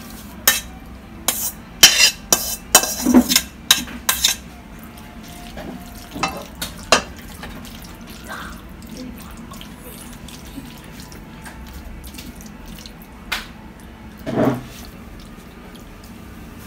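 A metal spoon clinking and scraping against a stainless steel pan and a glass baking dish as sauced macaroni is spooned from one into the other. There is a quick run of sharp clinks over the first four seconds, then only a few scattered knocks.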